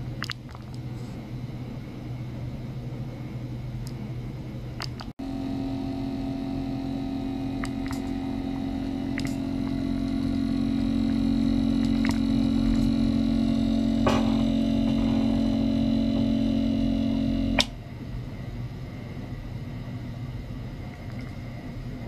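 Small ultrasonic cleaner bath running, giving off a steady electrical hum. After a cut about five seconds in, a louder steady buzzing drone with several fixed tones runs for about twelve seconds and then cuts off suddenly, leaving the lower hum.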